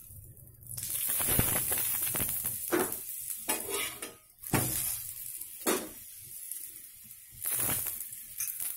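Oil sizzling on a hot tawa as it is spooned onto a paneer paratha and spread. The hiss starts about a second in, loudest just after the oil goes on, with a steel spoon and spatula scraping and tapping on the pan several times.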